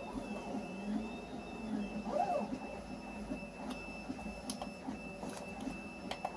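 Faint machine whir whose pitch rises and falls about once a second, under a thin high tone that cuts in and out. From about four seconds in there are light clicks of wires and alligator clips being handled.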